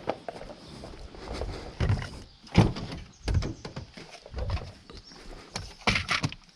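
A series of irregular knocks and thuds, about a dozen, unevenly spaced, with the loudest near the middle.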